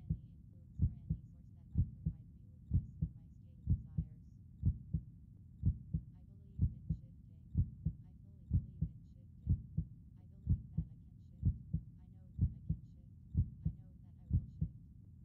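Recorded heartbeat, an even lub-dub double beat a little under once a second, over a steady low hum.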